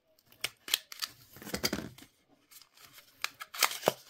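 Small cardboard cosmetics box being opened by hand: irregular crackles, clicks and scraping rustles of the flap and paperboard, the loudest a couple of sharp snaps near the end.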